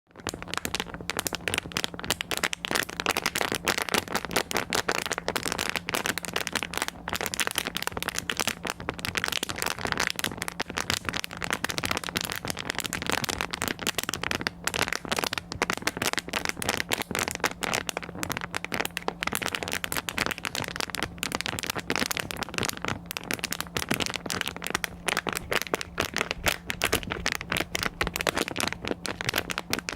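Continuous dense, irregular crackling and clicking, with a steady low hum underneath.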